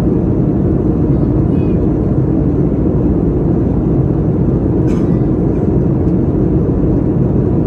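Steady cabin noise of a Boeing 737-800 in flight, heard inside the cabin at a window seat: a constant low drone of the CFM56-7B turbofan engines and rushing airflow. A faint click about five seconds in.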